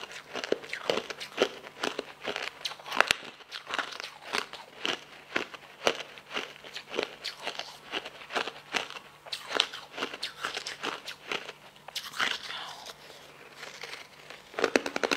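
Crisp crunching of frozen pink ice balls being bitten and chewed close to the microphone: a rapid, irregular run of sharp crunches, with a brief lull shortly before the end.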